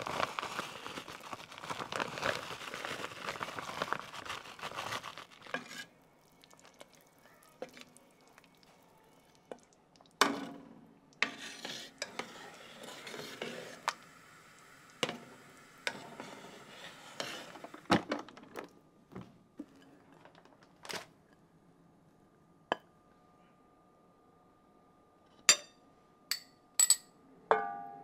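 Kitchenware handled: about six seconds of busy scraping and stirring, then scattered knocks and clinks of pots, dishes and cutlery. Near the end come a few sharp clinks that ring briefly, like metal on a plate.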